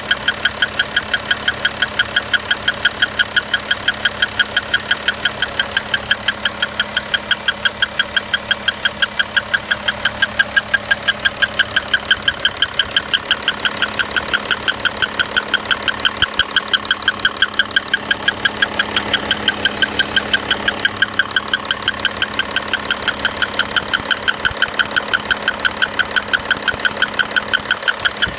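2011 Audi Q7's 3.0 TDI V6 diesel engine running with a rapid, even ticking knock several times a second over the steady engine note. It is an abnormal engine noise whose cause the owner does not know.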